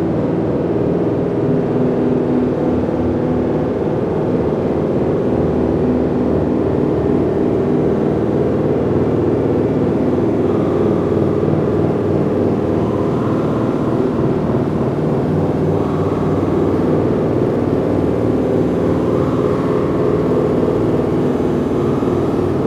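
Experimental drone soundtrack: a dense, steady low rumble like a running engine, with faint higher tones coming and going from about ten seconds in.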